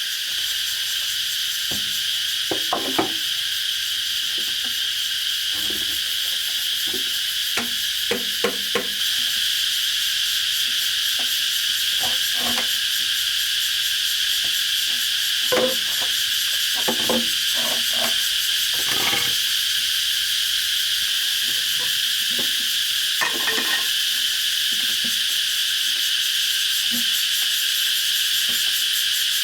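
A loud, steady, shrill chorus of insects, with scattered light knocks and taps now and then.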